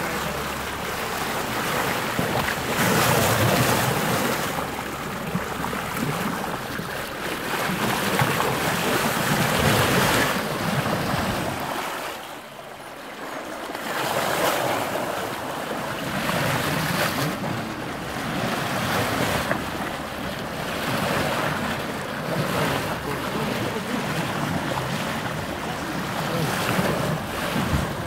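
Sea water rushing along the hull of a moving boat, mixed with wind buffeting the microphone, swelling and easing every few seconds and dipping briefly about twelve seconds in.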